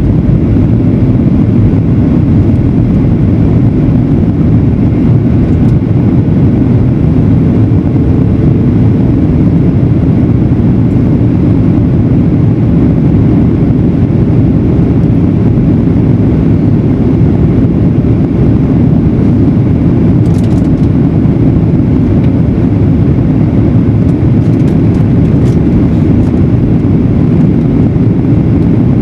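Steady, loud, low rumble of engine and airflow noise in a Boeing 737-900ER's cabin, with a few faint ticks near the end.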